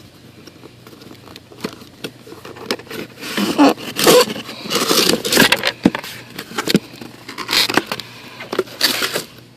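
Cardboard shipping box being torn open by hand: the lid pulled up along its seam, with irregular scraping, crinkling and sharp clicks that grow busier about three seconds in.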